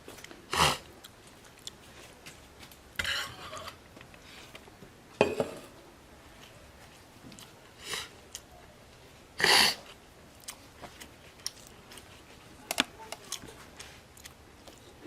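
Close-up eating sounds: chewing and mouth noises with small clicks, broken by a few short, louder scrapes or clatters of a plate being handled.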